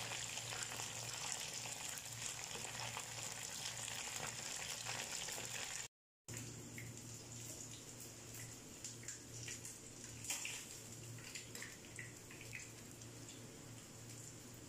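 Chicken wings deep-frying in hot oil: a steady sizzle. After a brief dropout about six seconds in, the sizzle is quieter and broken by a few light clicks and crackles as the fried wings are set down with tongs on paper towel.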